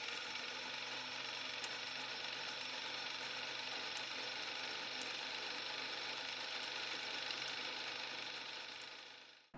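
Film-projector sound effect: a steady mechanical whir with a low hum and a few faint clicks, fading out near the end.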